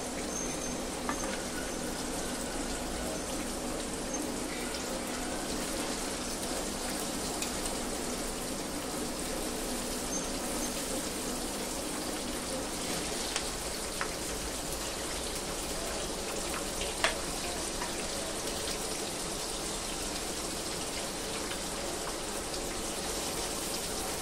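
Malai chicken kebabs deep-frying in hot oil in a kadhai: a steady sizzle, with a few sharp clicks, the loudest about 17 seconds in.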